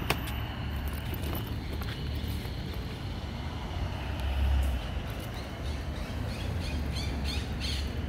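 Street ambience: a low rumble of traffic and movement under a steady high hum, with a single click at the start and a quick run of short bird calls near the end.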